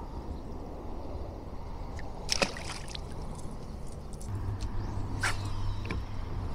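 A small spotted bass dropped back into the water with a splash about two and a half seconds in, then a cast about five seconds in, with line paying off the casting reel. A steady low motor hum sets in shortly before the cast.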